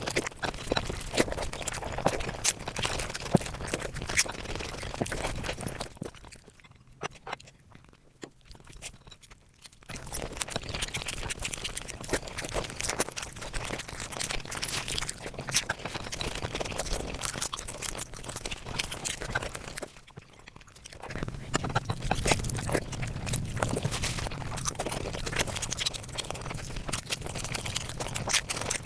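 Eating sounds played back at five times speed: rapid chewing, crunching and mouth clicks, with a quieter lull about six seconds in and a brief one about twenty seconds in.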